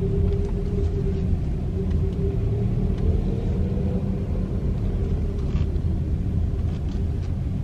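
A car driving slowly, heard from inside the cabin: a steady low rumble of engine and tyres with a faint hum over it.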